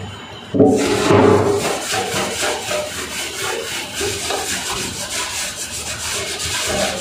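Cloth rag scrubbed back and forth over a stainless steel sink deck in repeated strokes, starting about half a second in. It is cleaning the faucet mounting area so the new faucet's rubber gasket seats.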